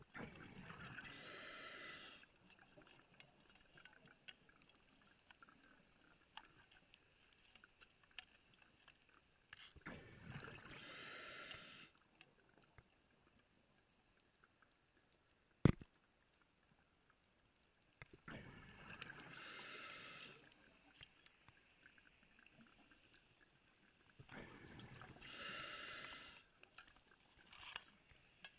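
A diver breathing underwater: four bursts of exhaled bubbles rushing out, each about two seconds long and roughly eight seconds apart, with one sharp click about halfway through.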